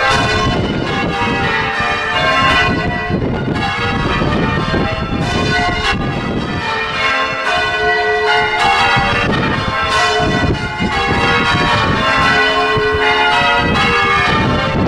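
Church bells rung full circle in change ringing: a steady, continuous stream of bell strokes, each one ringing on over the next.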